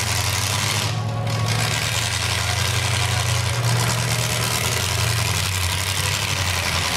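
Demolition derby car engines idling and running: a steady low drone under a wash of noise.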